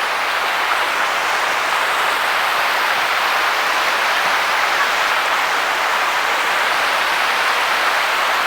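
Steady rushing of shallow river water, an even hiss with no breaks.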